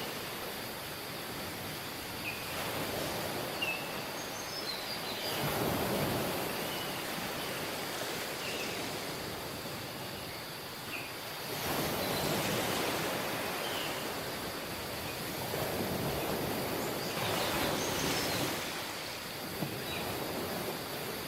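Ocean surf on a beach: waves washing in roughly every six seconds over a steady rush of water, with scattered short high chirps.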